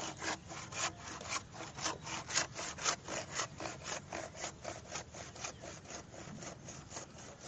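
Handsaw cutting through a bamboo pole in quick back-and-forth strokes, about four a second, a little fainter in the last couple of seconds.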